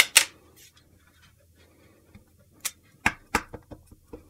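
Light, sharp taps and clicks of a rubber stamp being inked on a Memento ink pad in its plastic case: two at the start, then a quick run of five or six from about two and a half seconds in.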